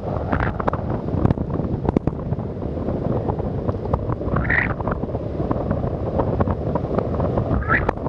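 Wind buffeting the microphone in flight, a steady rush with scattered light clicks. Two brief rising squeaks, one about halfway through and one near the end.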